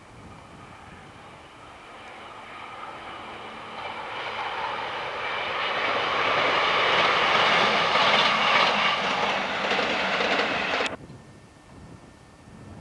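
Class 158 two-car diesel multiple unit approaching and passing at speed: engine note and wheel-on-rail noise grow steadily louder to a peak as it goes by, then cut off suddenly about eleven seconds in, leaving faint wind on the microphone.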